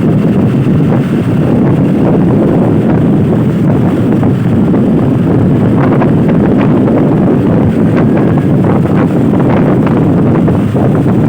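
Loud wind buffeting the microphone over a steady low rumble of road traffic, with no horn sounding.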